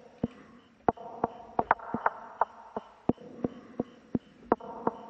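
Fathom software synthesizer patch playing: sharp, pitched knocks with delay repeats, about three a second, over sustained synth tones and a faint high steady whine.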